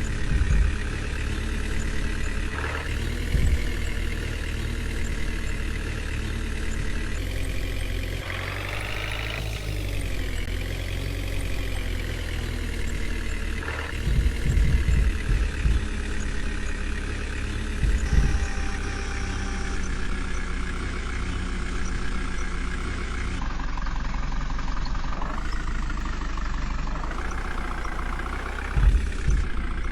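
Diesel engine of a JCB 3DX backhoe loader running steadily, revving up and dropping back once about eight seconds in. A few short low thumps sound through it.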